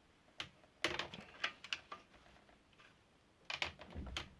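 Light metal clicks and clinks in scattered groups: hand tools working the adjustable cup of a vintage cup-and-cone bicycle bottom bracket loose.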